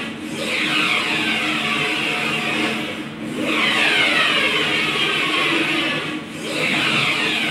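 UV flatbed printer's printhead carriage sweeping back and forth across the board. It makes a whir that falls in pitch over each pass, with a brief dip as the carriage reverses about every three seconds.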